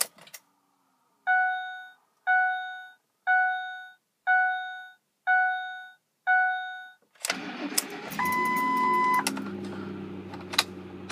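Six dashboard warning chimes about a second apart with the key on. Then the 2008 Lincoln Mark LT's 5.4-litre V8 cranks and fires on a cold start, with a steady beep lasting about a second as it catches, and settles into a steady idle.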